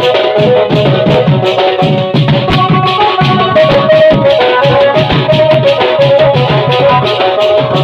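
Koraputia band party playing: rope-tensioned barrel drums beaten in a fast, dense rhythm, with a melody line moving in short steps above the drumming.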